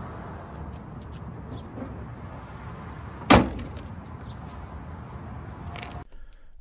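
The hood of a Sprinter van slammed shut once, about three seconds in: a single sharp bang over a steady low background noise.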